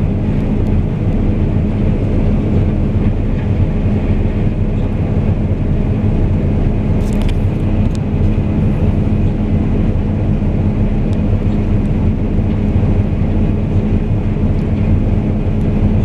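Case IH combine harvester cutting and threshing wheat, heard from inside the cab: its diesel engine and threshing machinery running with a steady, unbroken low drone.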